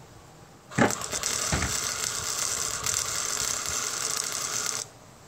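Electric arc welder crackling and sizzling for about four seconds, starting sharply about a second in and cutting off abruptly near the end: a weld bead being run on painted steel, the arc burning through the paint.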